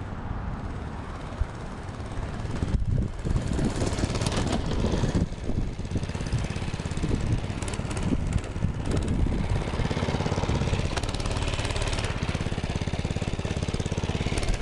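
Baja Doodle Bug mini bike's small single-cylinder four-stroke engine running under riding, the revs rising and falling with brief drops about 3 and 5 seconds in, then holding a steady even drone through the second half.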